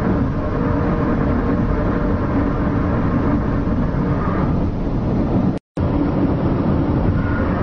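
A loud, steady low rumbling drone with faint humming tones in it, broken by a silent gap of a fraction of a second about three-quarters of the way through.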